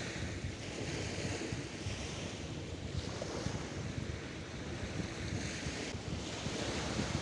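Sea surf washing onto the shore, its hiss swelling and fading several times, with wind rumbling on the microphone.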